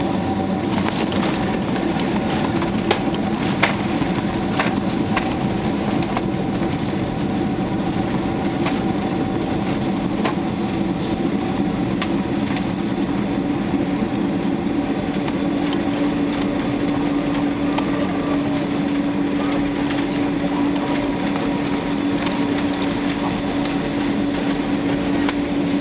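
Cabin noise of an airliner on the ground just after landing: a steady roar of engines and rolling, with rattling and knocking from the cabin fittings in the first several seconds. A steady hum comes in about halfway through.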